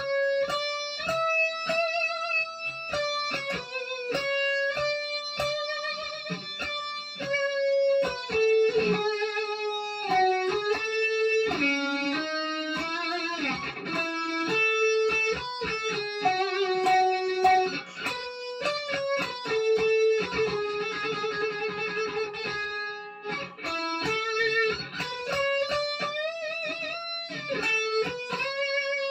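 Fender Stratocaster electric guitar playing a slow, singable melody one note at a time, with vibrato on some of the held notes.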